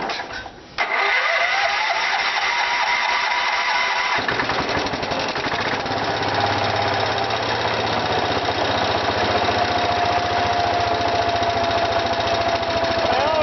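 Case 222 garden tractor's 12 hp Kohler K301 single-cylinder engine being cranked over by the starter, catching about four seconds in and then running steadily, on a freshly fitted ignition coil and condenser.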